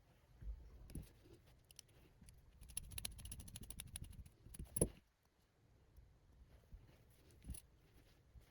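Faint clicks of small screws being driven by hand into an FPV camera mount: a run of quick fine clicks, then a light knock about five seconds in.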